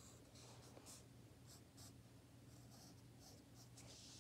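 Faint pencil strokes scratching on sketchbook paper: a string of short, separate strokes over a low steady hum.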